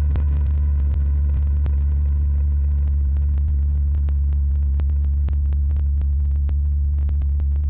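A loud, steady low hum with fainter steady tones above it and scattered faint clicks.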